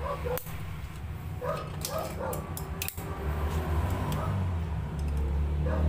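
A dog barking a few short times, with scattered sharp metal clicks from work on a foot pump's pin, over a steady low hum.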